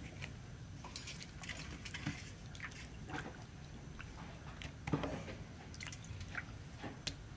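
Hands washing a raw whole chicken in a basin of water: small splashes and drips, with one louder splash about five seconds in.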